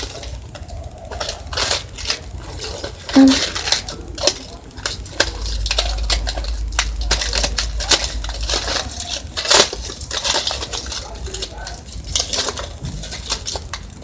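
A small wrapped package being handled and opened: irregular crinkling, tearing and clicking, with a sharp click about three seconds in and another past the middle.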